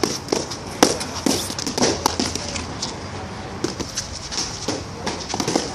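Escrima fighting sticks clacking and striking during stick-fighting sparring: a run of irregular sharp knocks, the loudest about a second in and about two seconds in.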